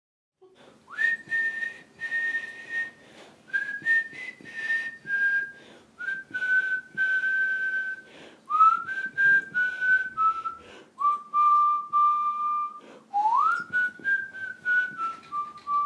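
A person whistling a slow tune: long held notes, several sliding up into place, the melody stepping gradually lower. Soft clicks and taps run throughout.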